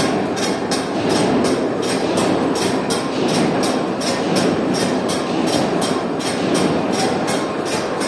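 Heavy-duty lathe running, a steady rumbling machine noise with sharp, evenly spaced ticks about three times a second.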